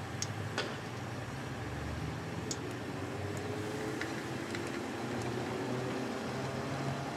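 Breaded fish frying in hot oil under a mesh splatter screen: a steady sizzle with a few sharp pops, over a low hum.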